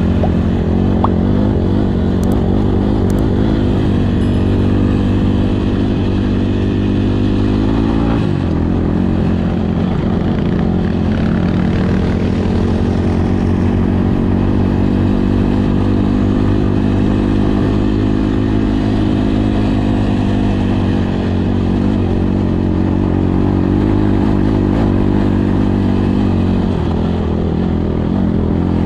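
Kawasaki KLX150 dual-sport motorcycle's single-cylinder four-stroke engine running steadily under way on a gravel road. The engine note breaks off briefly about eight seconds in, then settles again.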